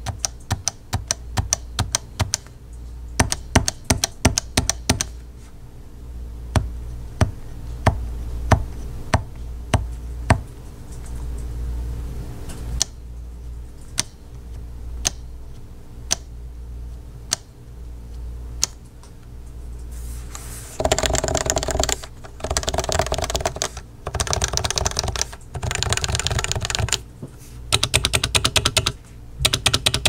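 Keystrokes on a Leopold FC660C's Topre capacitive rubber-dome switches: single keys pressed one at a time, about two a second, including bottom-out strikes, keys springing back, the spacebar and the larger modifier keys. About two-thirds of the way through it changes to fast runs of keystrokes rolled along the rows, each run about a second long.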